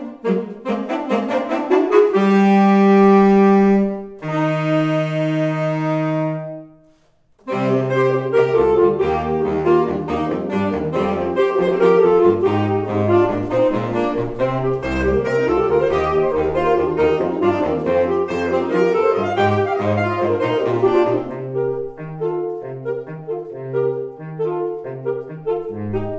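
Alto, tenor and baritone saxophone trio playing: a few short detached notes, then two long held chords, the second fading away into a brief silence about seven seconds in. All three then come back in with a busy, moving passage over a low baritone bass line, thinning near the end to short, detached bass notes.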